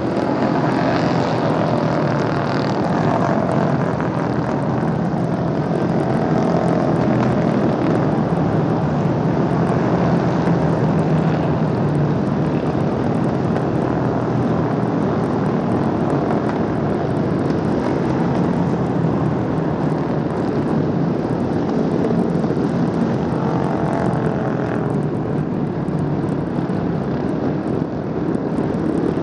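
Road-racing motorcycles running at speed on a circuit, many engines overlapping in a loud, steady drone. The pitch of single bikes slides down near the start and rises again near the end as they pass.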